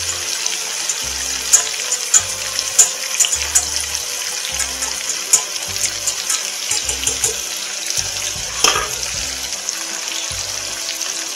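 Veal tafelspitz searing fat side down in hot oil in a frying pan: a steady sizzle with frequent crackles and pops, and a louder knock about nine seconds in.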